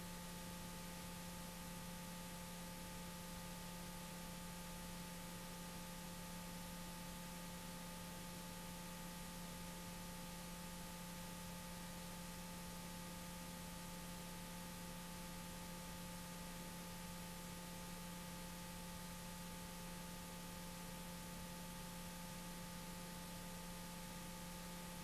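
Faint steady hiss with a low hum and a few thin steady high tones: the background noise of an old analogue tape transfer, with no music or speech.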